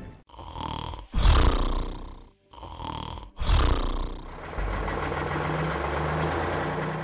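Crocodile roar sounds for a toy crocodile: short growling bursts, in two pairs, the second of each pair louder. About four and a half seconds in, a steady low engine drone starts as a toy tractor is pushed over sand.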